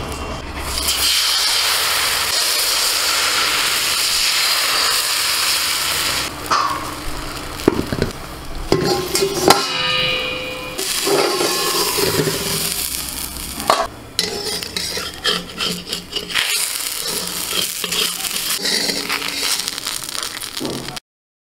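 Rice-flour batter for soru chakli pitha sizzling in a hot aluminium kadai, with clinks and clatter of a metal plate used as a lid in the middle.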